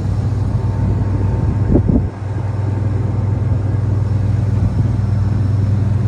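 Wirtgen W100F cold milling machine's diesel engine running steadily with a low hum. A brief louder double clunk comes about two seconds in, with a short drop in level right after.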